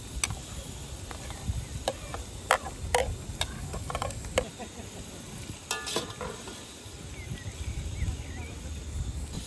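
A metal slotted spoon clinking and scraping on a porcelain plate as chopped onions are scraped into a pot of diced potatoes: a string of sharp clinks through the first six seconds. After that comes softer stirring in the pot.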